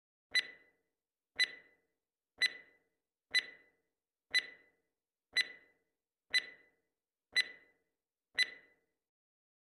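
Countdown timer sound effect: nine short ringing ticks, one a second.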